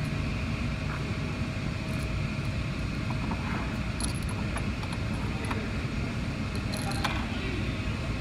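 Steady low background hum with a few faint light metallic clicks as a small steel washer and bolt are handled.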